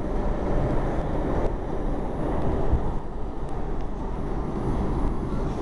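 R142 subway train running, heard from inside the car: a steady rumble of wheels on the rails with no pauses or distinct events.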